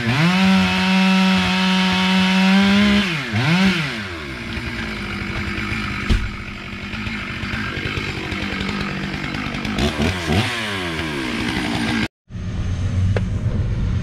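Chainsaw revved to full throttle and held for about three seconds, dropping and revving again, then running lower and rougher as it cuts through a tree trunk, with another short rev near the end of the cut. About two seconds before the end it stops abruptly and a low vehicle engine takes over.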